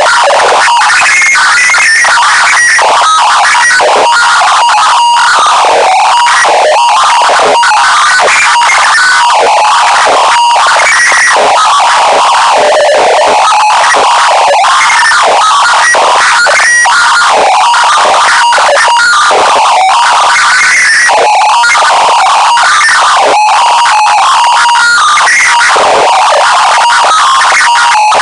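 Deliberately overdriven "earrape" audio: a harsh, clipped wall of distorted noise held at maximum loudness, with short flickering tones near 1 and 2 kHz and almost no bass.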